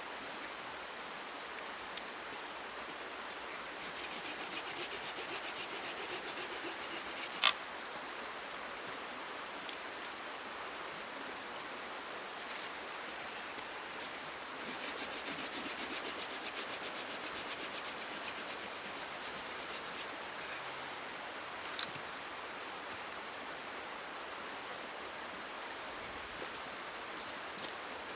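A small hand saw rasping through a branch in two spells of quick strokes, with a sharp crack each time the wood snaps, about 7 and 22 seconds in. A river rushes steadily underneath.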